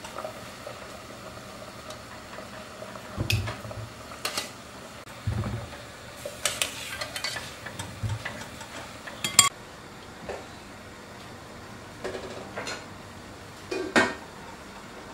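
Kitchen clatter: a wire-mesh skimmer clinking against an enamel pot and a glass bowl as boiled potatoes are lifted out of the water and dropped in, with a few dull thuds. Near the end an enamel pot lid is set on with a clink.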